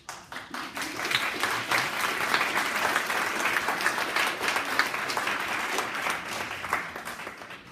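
Audience applauding: many people clapping at once, starting abruptly and dying away near the end.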